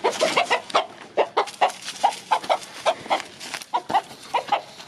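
A half game-fowl rooster squawking in alarm while it is chased, a rapid run of harsh squawks about three or four a second.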